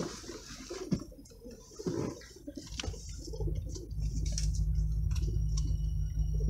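Inside a car creeping forward in slow traffic: scattered light ticks and soft low sounds, then a steady low rumble of the car sets in about three seconds in.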